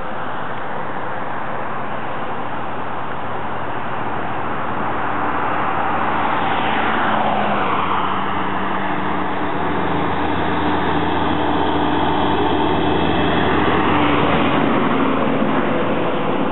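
Highway traffic noise. A vehicle passes about six seconds in, its pitch falling as it goes by, and an engine hum stops a little before the end.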